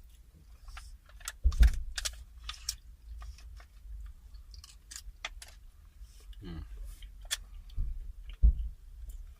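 Close-up eating sounds: chewing with many short wet mouth clicks and small sharp clicks, and two heavier thumps about one and a half and eight and a half seconds in.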